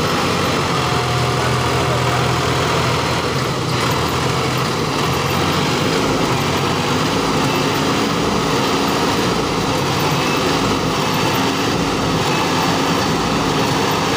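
Force Sanman tractor's diesel engine running steadily under heavy load as the tractor tries to drive a loaded trolley out of soft, loose soil it is stuck in. The engine note shifts about four seconds in.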